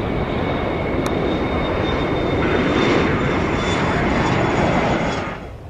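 Boeing 747 freighter's four jet engines running as it rolls along the runway: a steady roar with a high fan whine over it, swelling about halfway through and cutting off sharply near the end.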